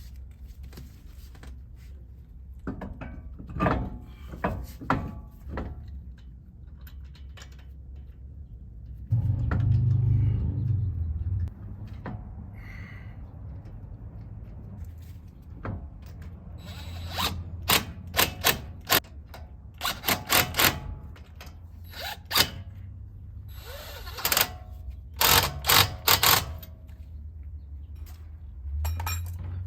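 Hand tool work on a car wheel: scattered metal clanks and knocks, with a low steady whirr lasting about two seconds around ten seconds in and a quick run of sharp knocks in the second half.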